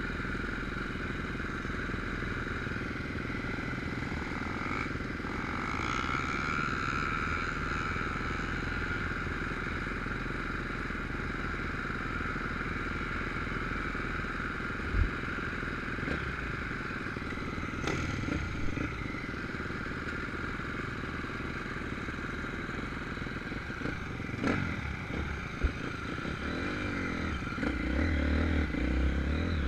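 Dirt bike engines running at high revs up a steep hill climb, a steady distant drone. Near the end a closer bike's engine revs up and down.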